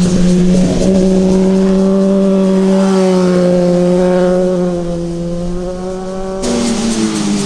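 Sport motorcycle engine held at steady high revs, its note easing slightly lower over several seconds. Near the end it switches abruptly to another bike's engine, whose pitch falls as the throttle is rolled off.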